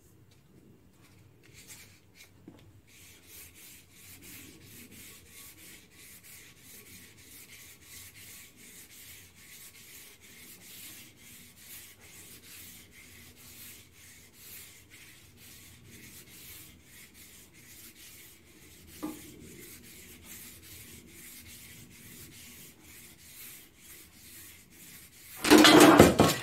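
A sanding sponge rubbing the rim of a primed engine flywheel by hand, a steady run of quick scraping strokes starting about three seconds in. There is a sharp knock about two-thirds of the way through, and near the end comes a brief, much louder scuffing burst.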